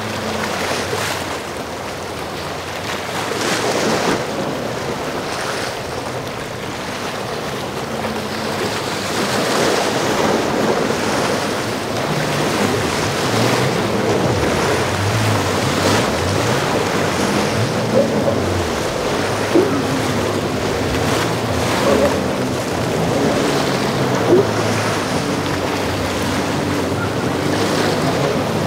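Waves and surf rushing, with wind buffeting the microphone, over the low drone of boat engines. Four short sharp sounds stand out in the second half.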